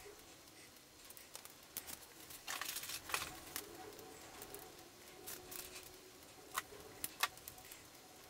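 Hands handling a 3D-printed plastic quadcopter frame and its ESC wiring: scattered small clicks, taps and rustles, with a longer rustle about three seconds in and two sharp clicks near the end.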